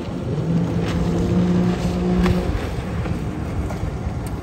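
Motorboat engine running with a steady, even-pitched hum that stops about two and a half seconds in, over a constant low rumble.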